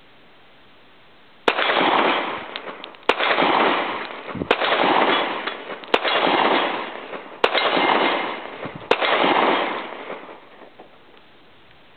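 Colt Officers Model .45 ACP 1911 pistol firing six shots at a steady pace, about one and a half seconds apart. Each shot is followed by a long echo that fades before the next.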